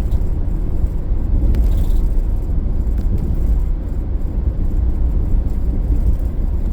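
Car driving on a road, heard from inside the cabin: steady engine and tyre noise, mostly a low rumble.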